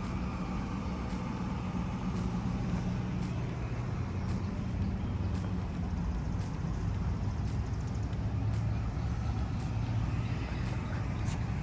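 A vehicle engine idling steadily, with faint ticks about twice a second.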